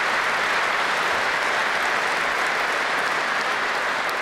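A large audience applauding, a dense, steady clapping that holds at an even level throughout.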